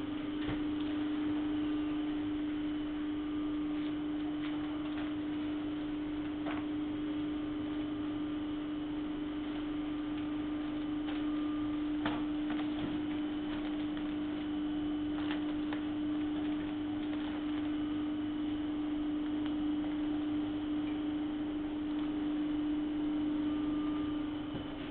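Steady hum of a running shrink wrapping machine, one tone held unchanged throughout, with a few light clicks here and there.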